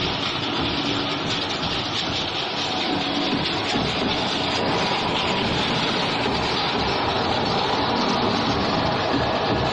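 Potato chip production line machinery running: an inclined mesh belt conveyor driven by an electric gear motor, giving a steady, dense rattling noise.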